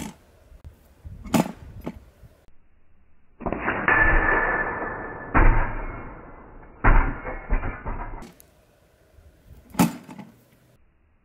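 Air-rifle pellets striking a steel deer-shaped knockdown field target: a few sharp cracks, about one second in and again near the end, with a longer stretch of rougher noise in the middle.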